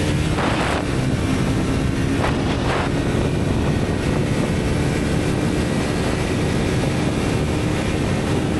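Heavy wind rush over the microphone, with a Triumph 400's 398 cc single-cylinder engine running steadily underneath as the motorcycle holds high speed.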